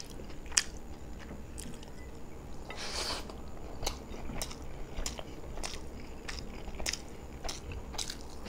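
Close-miked chewing and mouth sounds of a person eating beef biryani by hand, with short wet clicks about two a second. A brief rustle about three seconds in.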